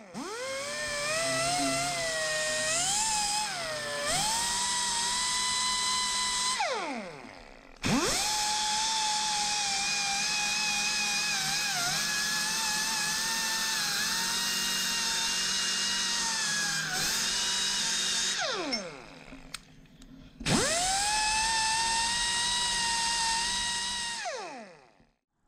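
Die grinder with a wire cup brush scrubbing the steel handle of an old ratchet. It makes three runs of a high whine, each spinning up quickly and winding down in falling pitch when released. The pitch sags and wavers while the brush is pressed hard against the metal.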